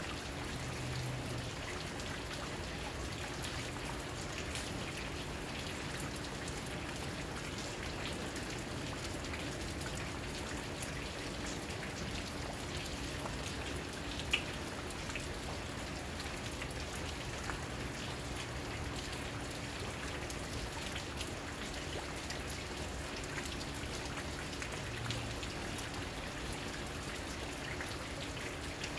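Steady rain falling, with many small drops ticking on surfaces and one sharper tick about halfway through.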